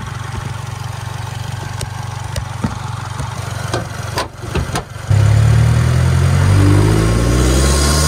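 Subaru WRX's FA24 turbocharged flat-four engine, fitted with a Perrin turbo inlet, running steadily as heard from inside the engine bay, with scattered knocks and clicks. About five seconds in it turns to a much louder engine note rising in pitch as the car accelerates, with a rushing hiss building near the end.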